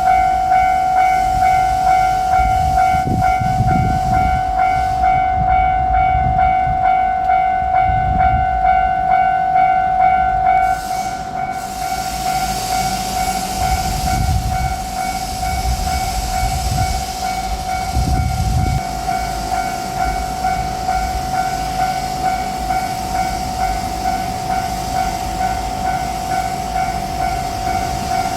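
Japanese level crossing warning bell ringing in a fast, even, repeating clang, dropping a little in level about eleven seconds in. Beneath it, low rumbles come and go from a passing JR Shikoku 7200 series electric train.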